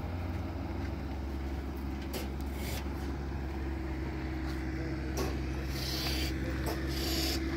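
Low, steady hum of a vehicle engine running, with a faint higher tone that grows stronger in the second half.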